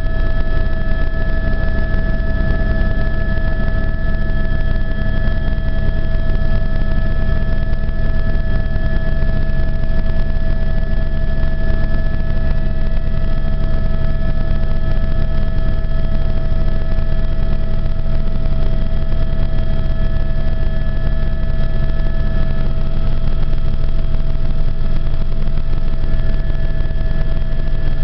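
Helicopter in flight, heard from inside the cabin: a steady, loud rotor and engine rumble with a steady high whine over it.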